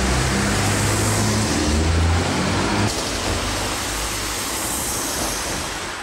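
Car traffic passing close by: the low, steady hum of a slow-moving car engine, then after about three seconds an abrupt change to the even hiss of passing traffic and tyres.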